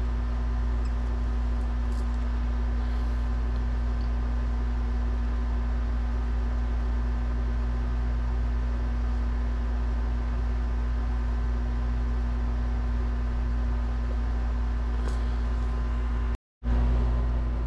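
Steady machine hum in a room, a deep rumble with a few steady tones above it, unchanging throughout; it cuts out completely for a moment near the end, then returns slightly louder.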